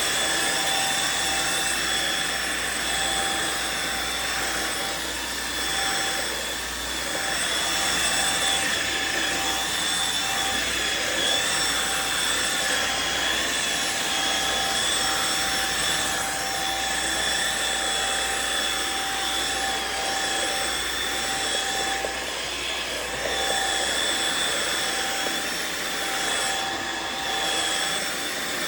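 Riccar R70 floor washer running steadily: the rush of its suction motor with a steady high whine over it.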